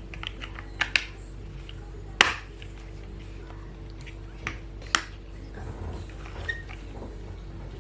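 Plastic toy blocks being handled, with scattered sharp clicks and knocks about every second or two over a steady low hum. The loudest knock comes about two seconds in.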